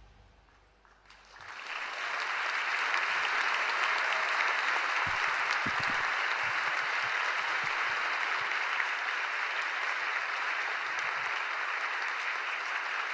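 The last low note of the band fades out, and about a second and a half in a large audience breaks into applause that goes on steadily.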